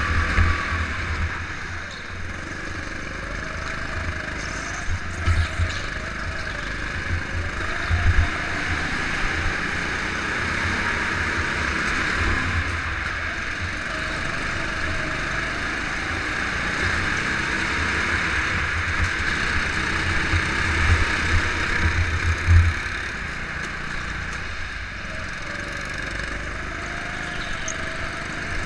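Rental go-kart engine running hard around an indoor track, heard onboard, its pitch rising and falling as the kart brakes and accelerates through the corners, with occasional low thumps.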